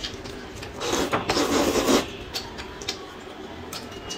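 Close-up eating noises at a table: a noisy rubbing, scraping sound lasting about a second, starting about a second in, then light clicks and small scrapes as a small egg is peeled by hand.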